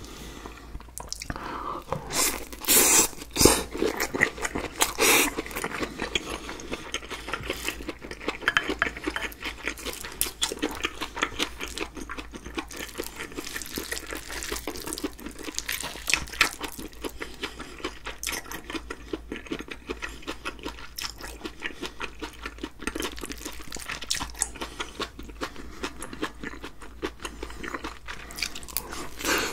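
Close-miked stirring of sea squirt bibimbap with a spoon in a glass bowl, loudest a few seconds in. Then the spoon scrapes and taps the bowl, with wet, crunchy chewing of the mouthfuls.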